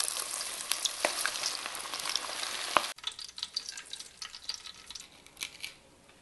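Breaded kabobs deep-frying in hot lard and peanut oil at about 375°F: a dense sizzle full of crackles that cuts off sharply about three seconds in. After it, only faint scattered clicks and taps.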